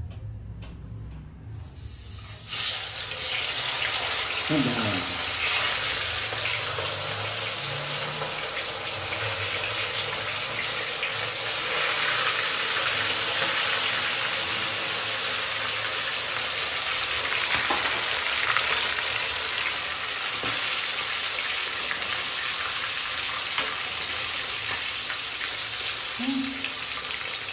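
Marinated chicken wings deep-frying in hot oil in an iron kadai: a loud, steady sizzle that starts suddenly about two seconds in.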